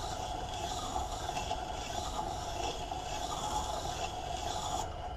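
Steel block plane blade scraping on the wet stone of a slow-turning water-cooled sharpening grinder, grinding its bevel while the blade is moved across the wheel face, over the grinder's steady motor hum. The scraping hiss rises and falls with the strokes and drops away near the end, leaving the hum.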